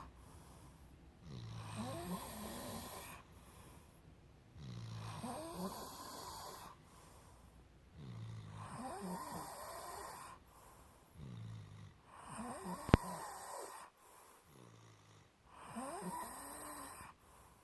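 Snoring: five slow snores about three and a half seconds apart, each with a whistling note that slides up and down. A single sharp click comes during the fourth snore.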